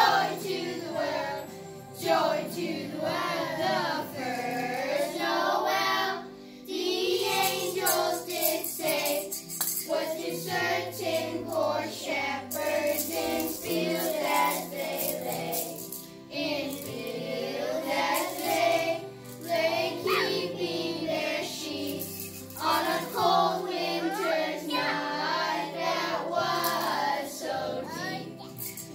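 A group of children singing a Christmas carol together over instrumental accompaniment with held low notes.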